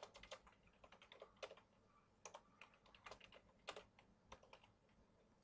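Faint computer keyboard typing: irregular keystrokes, closer together in the first second or so, then scattered taps.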